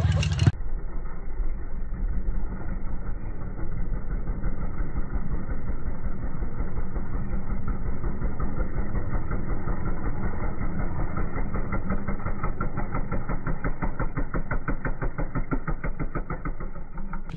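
Pit bike's small single-cylinder engine running steadily under throttle as the dirt bike is ridden through turns, sounding muffled.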